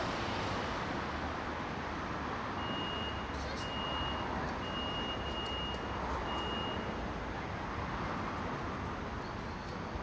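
Low-floor tram standing at a stop, its onboard equipment humming steadily, with street noise. A run of four high, steady-pitched beeps sounds in the middle.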